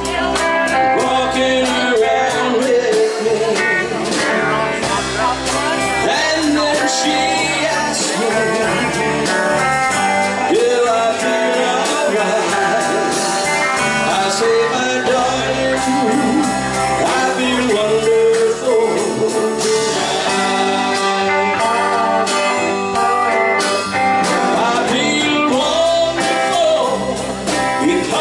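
Live country band playing: electric guitars, bass guitar and a drum kit.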